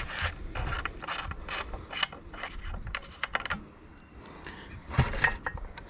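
Irregular clicking and rattling of small mechanical parts being handled by hand. No engine is running.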